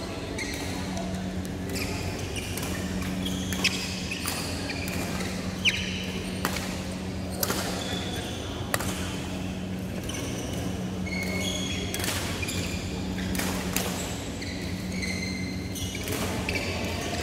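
Badminton rally: rackets striking the shuttlecock in sharp cracks every second or so, with court shoes squeaking on the synthetic court mat, over a steady low hum.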